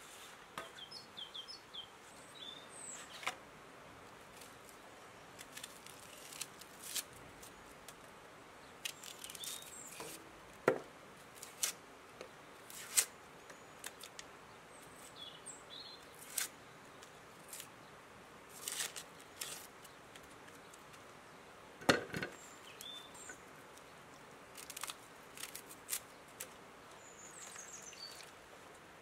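Small knife clicking and scraping on an onion as its dry papery skin is peeled away: scattered short clicks and rustles, a few sharper ones. Birds chirp faintly now and then.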